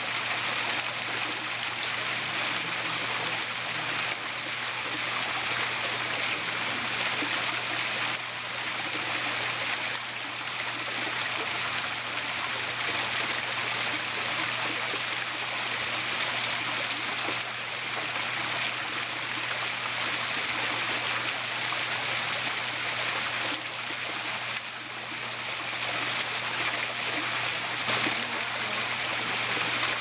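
Steady rush and splash of water falling down a small waterfall, with a low steady hum underneath.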